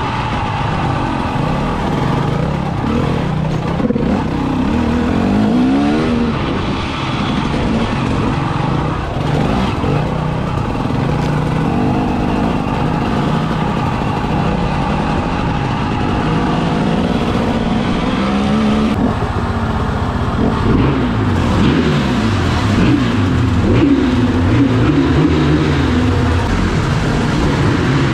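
Enduro motorcycle engine running hard on the trail, its revs rising and falling again and again as the throttle is opened and closed.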